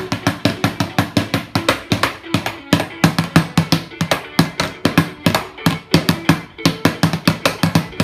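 Plastic toy drum beaten fast with two plastic mallets, about five or six hits a second without a break.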